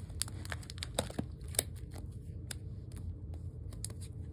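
Handling noise: soft rustling and scattered light clicks, louder about a second in, over a low steady hum.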